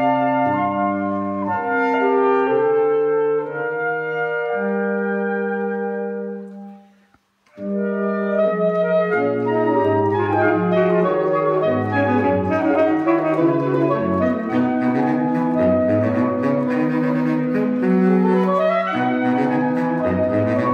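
Saxophone quartet of soprano, alto, tenor and baritone saxophones playing: held chords that fade to a brief silence about seven seconds in, then a busier passage of quick-moving notes in all parts.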